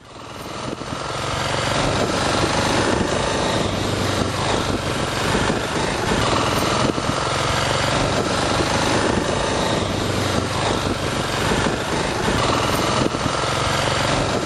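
Kawasaki KLX250 dual-sport motorcycle's single-cylinder four-stroke engine running steadily while riding a dirt road, heard from on board with wind and road noise mixed in. It fades in over the first second or two.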